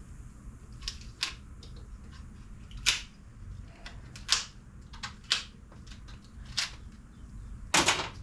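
Irregular sharp clicks and rustles of packaging and parts being handled, about eight in all, the longest and loudest one near the end.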